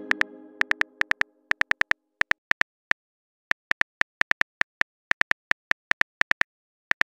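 Phone keyboard typing sound effect: a run of short, irregular taps, a few per second, while a pitched message-notification chime fades out over the first two seconds.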